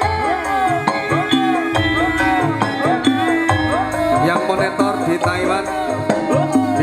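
Dangdut song playing through a line array PA speaker during a sound test, with a melody that slides up and down in pitch over a steady bass and drums.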